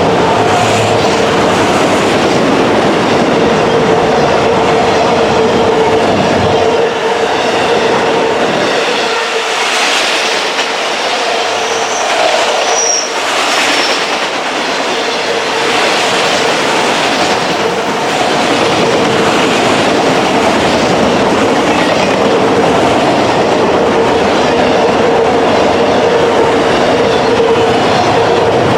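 A freight train's cars rolling past with steady wheel clatter over rail joints, and brief high wheel squeals about halfway through.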